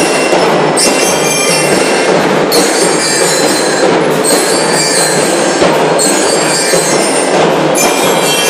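A school drum and lyre corps playing: steady drumming with bell lyres ringing high metallic notes over it, loud and dense.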